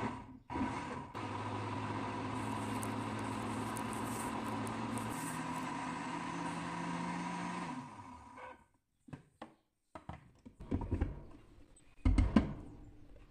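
Countertop blender motor running steadily, blending a ricotta, egg and milk filling into a smooth batter. Its pitch steps up about five seconds in, and it stops near eight seconds. A few knocks follow as the jar is lifted off the motor base, the loudest near the end.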